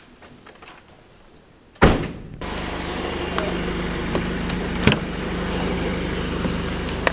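A car door shuts with a loud thud a little under two seconds in. After it a car engine idles with a steady low hum heard from inside the car, with a few light clicks and knocks.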